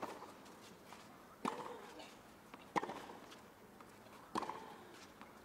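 Tennis rackets hitting the ball during a rally: four sharp hits about a second and a half apart, one right at the start, over faint court ambience.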